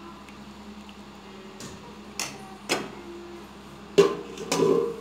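Steel pot and utensils knocking and clinking a few times, the loudest knock about four seconds in with a short metallic ring, followed by a cluster of clatter. A steady low hum runs underneath.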